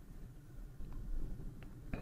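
Quiet room tone: a low hum with a couple of faint ticks.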